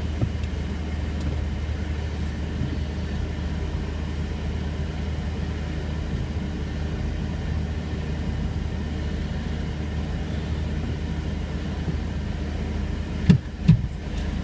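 Vauxhall Omega car running, a steady low drone, with two sharp knocks close together near the end.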